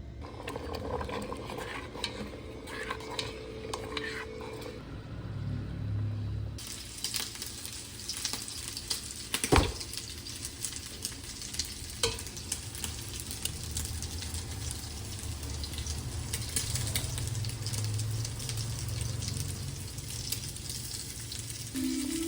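Food frying in a hot pan: a few utensil clinks and scrapes at first, then a loud, even sizzle sets in suddenly about a third of the way through and keeps going. A sharp knock of a utensil on the pan comes about halfway through.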